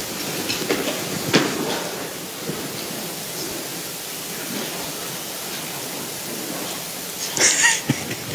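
Quiet room tone with a steady hiss, a single sharp knock about a second and a half in, and a brief rustle near the end.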